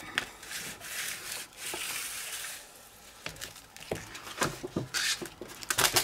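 A large sheet of stiff paper being folded toward the centre and creased with a bone folder: a smooth rubbing stroke about two seconds in, then paper crinkling and light taps near the end.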